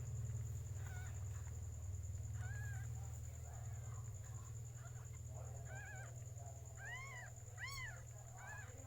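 Newborn kittens mewing: a series of short, high-pitched cries that rise and fall in pitch, coming more often and louder near the end, over a steady low hum.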